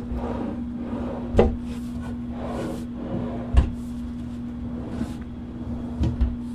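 Wooden cabinet drawers being pulled open and pushed shut on their newly installed slides: sliding rumbles, each ending in a knock as a drawer closes, the loudest about three and a half seconds in and a quick double knock near the end. A steady hum runs underneath.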